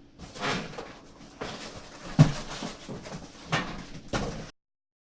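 Handling noises from unboxing a PC case: a string of dull knocks and rustling scrapes, the loudest knock a little over two seconds in. The sound cuts off abruptly about four and a half seconds in.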